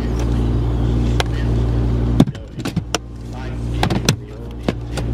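A car's engine idling with a steady low hum, while hard plastic equipment cases are knocked and shifted in the car's cargo area: a handful of sharp clunks and clicks. The hum drops away suddenly with a loud knock about two seconds in and builds back slowly.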